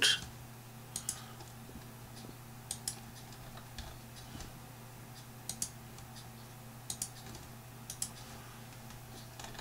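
Faint computer mouse clicks, mostly in quick pairs a second or more apart, over a steady low electrical hum.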